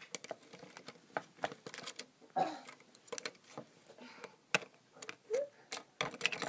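LEGO bricks being handled and pressed onto a model: irregular sharp plastic clicks and taps.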